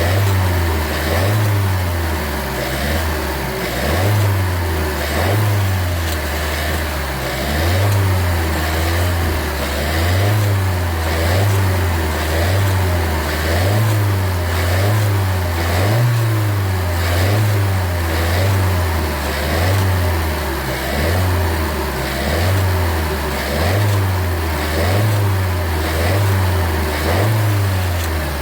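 Suzuki Swift Sport ZC33S's 1.4-litre turbocharged four-cylinder running, heard close up in the engine bay, with an abnormal rattling 'cha-cha-cha' noise whose cause the owner is trying to find. The low hum rises and falls in a slow, regular cycle about every second.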